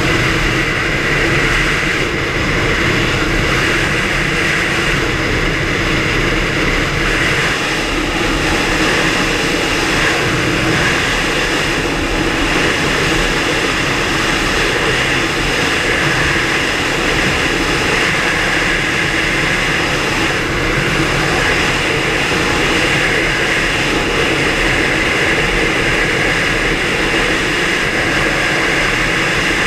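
Bass boat's stroker outboard motor running at a steady high speed, a constant loud drone with a rush of wind and water.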